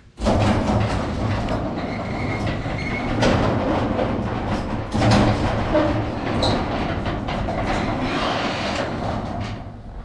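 Garage door opener running as the sectional garage door travels along its tracks: a steady rattling rumble with clicks that starts abruptly about a quarter second in and dies away near the end.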